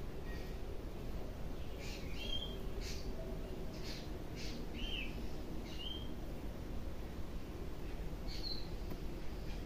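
Birds calling: a few short chirps that rise and fall, mixed with brief harsh rasping notes, scattered over a steady low background noise.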